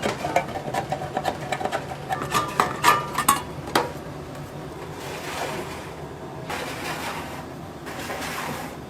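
Kitchen sounds of hot dogs being prepared: a quick run of clicks and clinks from utensils and trays for about four seconds, then a hiss that swells and fades several times.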